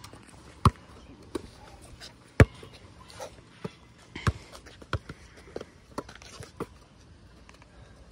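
Basketball bouncing on a concrete court: a handful of sharp, irregularly spaced bounces, the loudest about two and a half seconds in.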